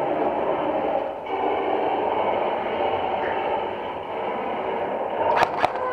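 A steady rushing rumble of background noise, with two sharp cracks about a quarter second apart near the end, typical of airsoft gun shots.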